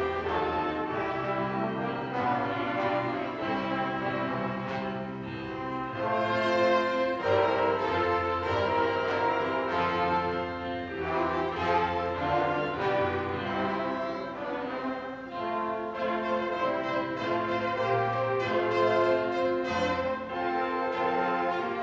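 A small orchestra of brass and strings playing a slow piece in sustained chords that change every second or two, with a horn-like brass sound out front.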